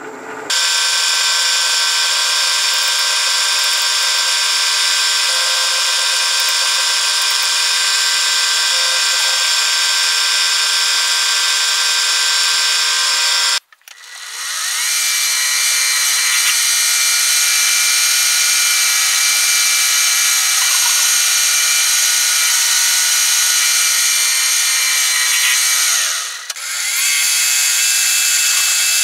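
Milling machine spindle running an end mill that cuts a flat along a steel tube, a steady whining machine sound. It cuts off abruptly about halfway through and starts straight up again, with a brief dip near the end.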